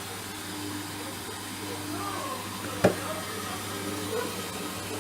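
Hoover washing machine running on its rinse with water in the drum: a steady low hum with a higher tone that comes and goes, and one sharp click a little under three seconds in.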